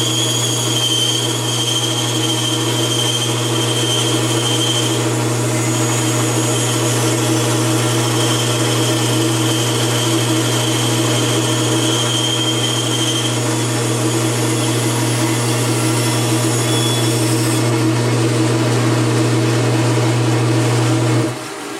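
Bandsaw running and sawing through a block of wood: a steady motor hum under the hiss and whine of the blade in the cut. The cutting noise eases about three-quarters of the way through, and the hum drops away suddenly near the end.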